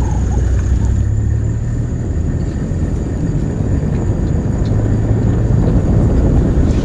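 Open safari truck driving along a bush track: a steady low engine rumble with road and wind noise, swelling briefly about a second in and again near the five-second mark.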